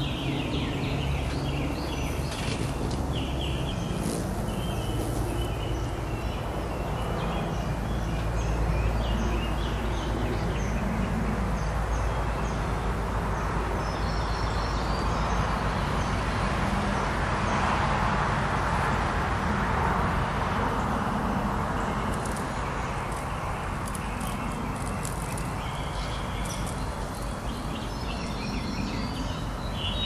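Outdoor ambience with small birds chirping now and then, and a passing vehicle whose broad rushing noise swells to a peak in the middle and fades away.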